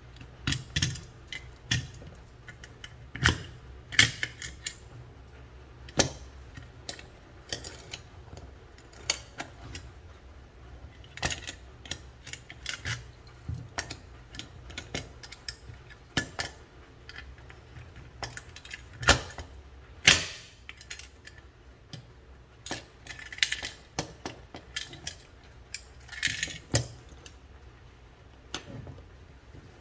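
Scattered clicks and metallic clinks as a horseshoe-shaped bicycle frame lock is handled: its steel shackle and cable end, key and small metal parts knocking and clinking at irregular intervals, with a few brief jingles near the end.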